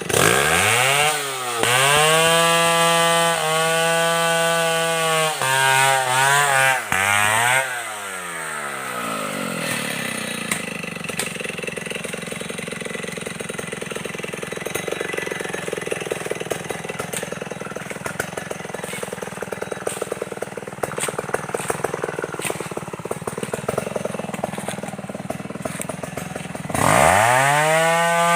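Stihl 070 single-cylinder two-stroke chainsaw revved to a high steady pitch, dipping briefly a few times, then dropping to a lower, rougher running for about twenty seconds before revving hard again near the end.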